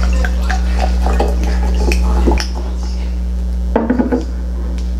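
Dark beer being poured from a glass bottle into a snifter glass, with short fizzy ticks, then a few knocks about four seconds in as the bottle is set down on the bar top. A steady electrical hum runs underneath.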